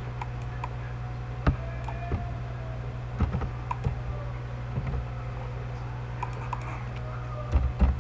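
Computer keyboard being typed on: scattered key clicks, then a quick run of keystrokes near the end, over a steady low hum.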